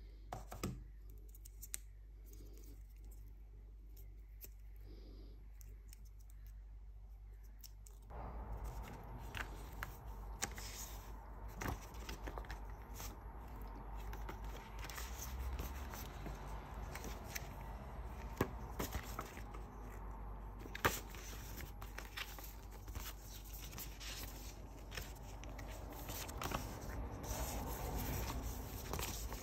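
Paper tearing and rustling as the iPad's documentation packet is unwrapped and its paper leaflets and sticker sheet are handled, with many small crisp clicks. It starts about eight seconds in, after a quieter stretch with a couple of soft clicks.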